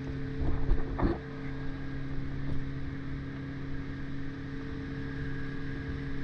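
Engine of a rigid inflatable boat running steadily at speed: an even hum under the rush of wind and water. There is a brief louder burst of noise about a second in.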